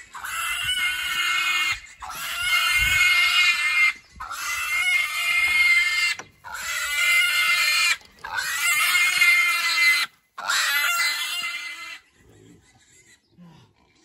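Piglets squealing while being carried in people's arms: a string of about six long, high-pitched squeals, each a second and a half to two seconds, that stop a couple of seconds before the end. Pretty loud, but nothing's wrong: the piglets are just whining and complaining at being handled.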